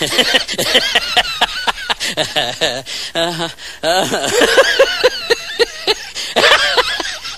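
A high-pitched voice laughing and vocalising in quick, rapid bursts.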